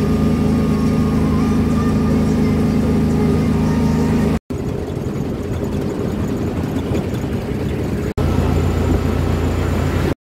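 A vehicle's engine running steadily with road noise, in three short clips joined by two abrupt cuts, about four and eight seconds in.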